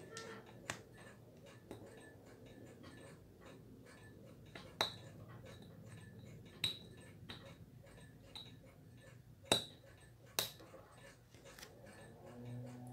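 Small metallic clicks and taps of a fine steel watchmaker's tool working at the end of a leather watch strap. About five louder, briefly ringing clicks are spread through, with lighter ticks and faint handling rustle between them.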